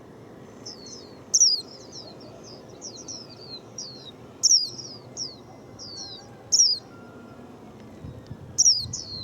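Young-adult white-eye singing: a quick run of high, thin chirps sweeping downward, with a louder sweeping phrase about every two seconds.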